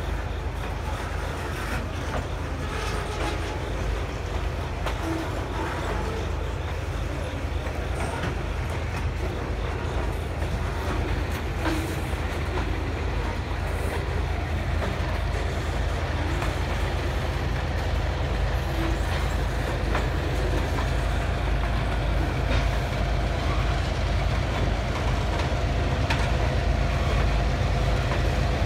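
Freight train of boxcars and a tank car rolling past, a steady low rumble with scattered wheel clicks over the rail joints, growing louder toward the end. A faint steady whine joins in about three-quarters of the way through.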